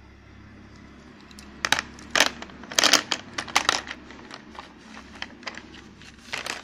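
Slate pencils and their cardboard boxes being handled on a plastic tray: a run of sharp clicks and rattles as the loose pencils knock together and against the tray, loudest a couple of seconds in, then lighter clicks with one more cluster near the end.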